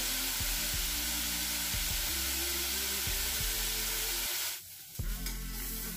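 Vegetables frying in hot oil in a pan on a gas stove: a steady sizzle that drops out for about half a second roughly four and a half seconds in, then returns.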